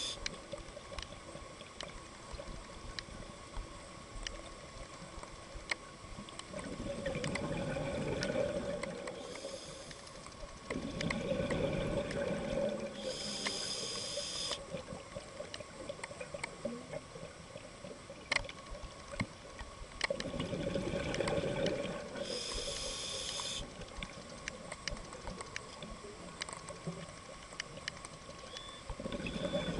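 Scuba diver breathing through a regulator underwater: a long bubbling rumble of exhaled air, then a short hiss of inhalation, twice, about ten seconds apart, with another exhalation starting near the end.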